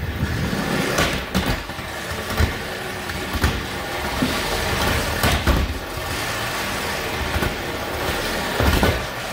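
Steel trolley wheels rolling along a Unistrut channel rail under a hanging electric hoist: a steady rattling rumble with several sharp knocks along the way.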